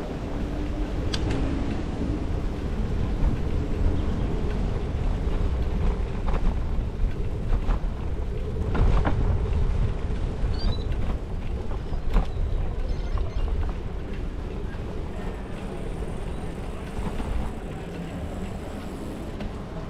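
Bicycle riding over wet paving: steady wind rumble on the bike-mounted microphone and tyre noise on the wet surface, with a few sharp knocks and rattles as the bike goes over bumps.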